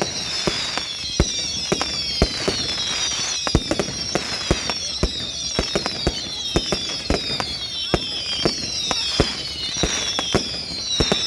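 Fireworks going off in quick succession: frequent sharp bangs, several a second, over repeated high whistles that fall in pitch about once a second from whistling shells.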